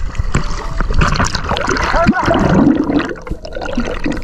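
Sea water splashing and gurgling around a GoPro in its waterproof housing as it moves through the surface and under water.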